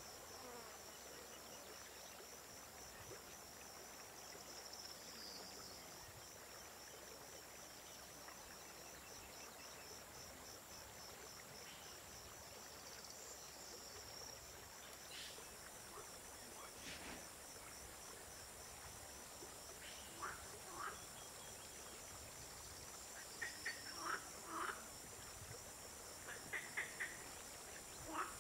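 Faint outdoor evening ambience of insects, likely crickets, chirping in a steady rapid high-pitched pulse. A few short separate calls come in over the last third.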